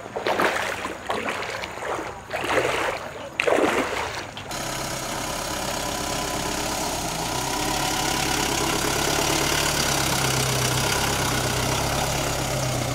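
For the first four seconds or so, uneven, broken noises. Then an abrupt change to an SUV's engine running steadily close by, with a constant low drone that grows a little louder partway through.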